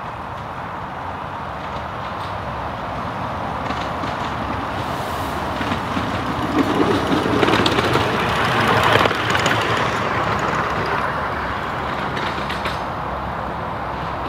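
A 7¼-inch gauge miniature steam locomotive running past on its track, growing louder as it comes near and fading after it passes, loudest about eight seconds in.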